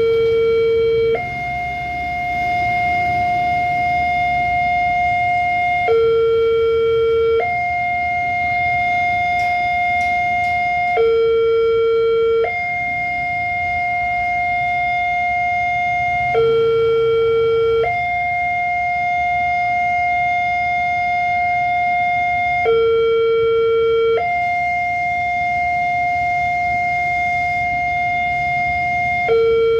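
Railway level-crossing warning siren sounding a steady electronic two-tone alarm. A higher tone is held for four to five seconds, then a lower tone for about a second and a half, repeating every five to seven seconds. This is the crossing siren the uploader calls faulty ('sirine error').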